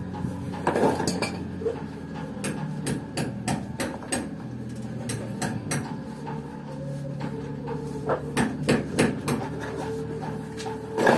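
Hammer strikes: sharp knocks coming several a second in uneven runs, the loudest near the end, over a faint steady hum.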